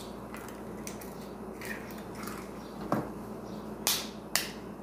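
Eggs tapped and cracked on the rim of a bowl: a few sharp knocks, the loudest about three seconds in and two more close together near the end, over a steady low hum.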